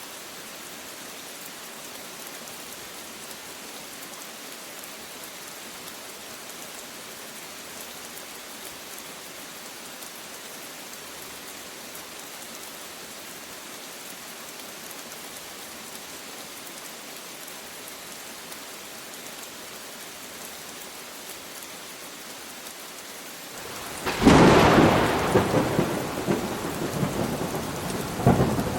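Steady rain falling as an even hiss. About 24 seconds in, a sudden loud thunderclap breaks out and rolls on as rumbling thunder, swelling again near the end.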